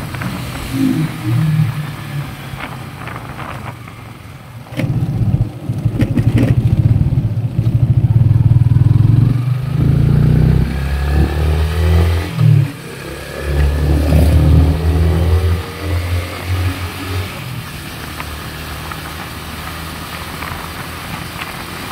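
Motorcycle being ridden, its engine running under the rush of riding on a rough concrete lane. A heavy, uneven low rumble of wind on the microphone grows loud about a quarter of the way in and eases off later. The engine pitch rises somewhat near the middle.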